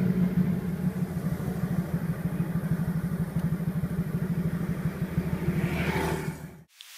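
Motorcycle engine running steadily with an even, rapid pulse, brightening slightly near the end before cutting off abruptly.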